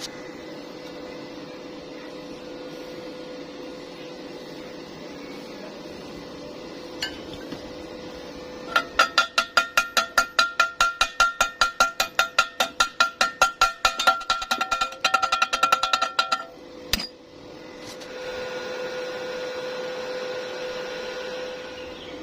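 Piece of steel struck rapidly over and over, about four blows a second for roughly eight seconds, each ringing at the same clear metallic pitch. A steady hum runs underneath.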